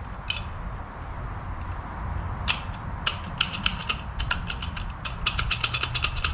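Flat-blade screwdriver prying a knockout out of a plastic electrical box. One click comes near the start, then from about two and a half seconds in a fast, irregular run of sharp plastic clicks that grows denser.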